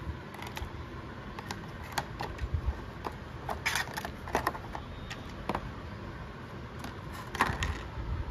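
Clear plastic takeaway food containers and lids being handled, giving scattered clicks and crinkly taps. The loudest bursts come about four seconds in, as the clear plastic lid comes off a noodle tray, and again near the end. A steady low hum runs underneath.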